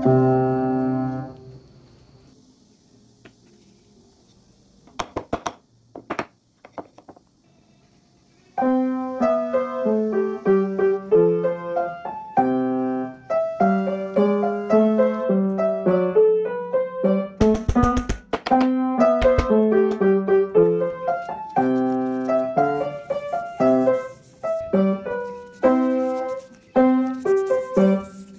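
Background piano music playing a melody. It fades away at the start, leaving a few seconds of faint hiss with a few short clicks, then comes back and carries on.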